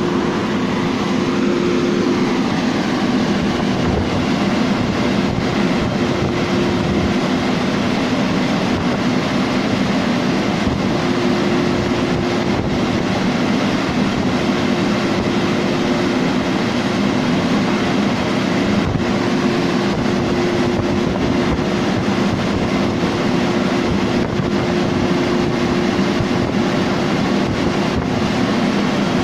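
Automatic train washing plant running: water spray and rotating vertical brush units with a steady mechanical hum, as a train creeps slowly into the wash.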